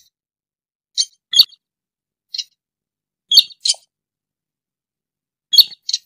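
Slaty-breasted rail calling: seven short, high call notes spaced irregularly, some in quick pairs, with silence between them.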